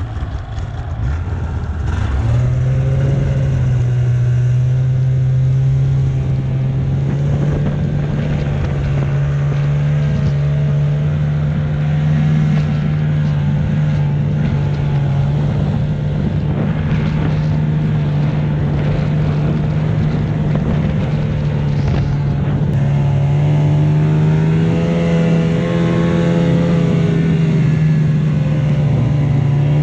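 Arctic Cat Bearcat 570 XTE snowmobile's two-stroke engine under way: it picks up about two seconds in, then runs at a steady cruising pitch, rising a little near the end.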